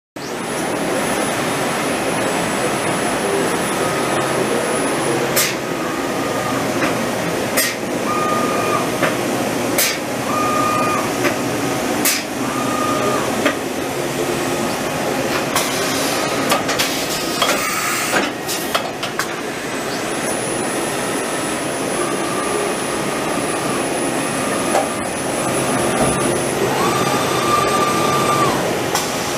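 Hurco VM20i CNC vertical machining center running: a steady dense hiss with a thin high whine at times, short mid-pitched tones every second or few, and scattered sharp clicks.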